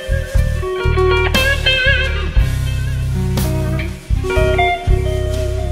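Background music led by guitar, with wavering, bent notes over a steady bass line.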